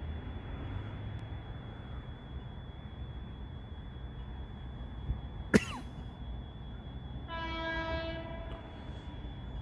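A sharp click about halfway through, then an Adelaide Metro train's horn sounding one steady note for just over a second, over a low rumble and a faint high steady whine.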